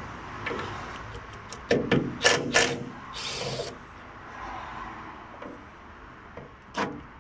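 Metal tool clinks and knocks against a van's bonnet hinge bracket and bolts as a tool is fitted to them, loudest about two seconds in, with a short rasping scrape about three seconds in.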